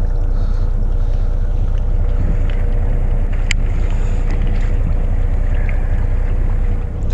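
Fishing boat's engine running steadily, a low rumble with a steady hum over it, and wind on the microphone. A single sharp click about halfway through.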